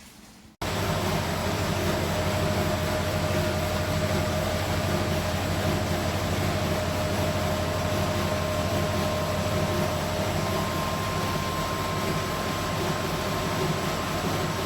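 A machine running steadily with a low hum and a faint steady whine, starting abruptly about half a second in.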